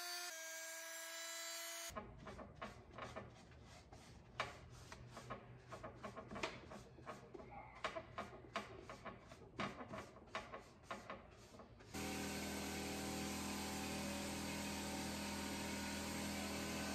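Paint spray gun running with a steady whine; about two seconds in it gives way to some ten seconds of irregular scratchy strokes and taps of a paintbrush working paint into a cabinet's corners, and the sprayer's steady whine comes back near the end.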